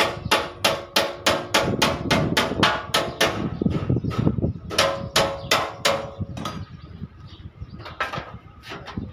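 Hammer beating a sheet-metal truck cab body panel into shape, about three blows a second, each with a short metallic ring. The steady hammering breaks off a little past three seconds, picks up again for a few blows, then stops about six seconds in, with only a couple of single knocks after.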